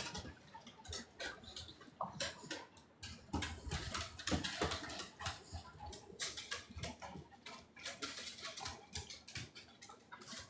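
Small dogs moving about close by: irregular light clicks, scratches and rustles, such as claws on the floor and paws against things.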